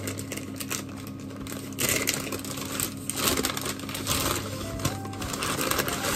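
Paper take-out bag crinkling and rustling in a series of surges as it is handled and opened, over background music.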